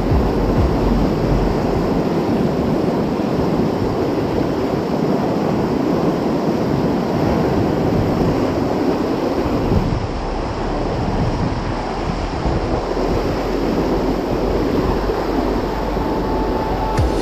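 Fast mountain river rushing over rocks, a steady whitewater noise, with wind buffeting the microphone.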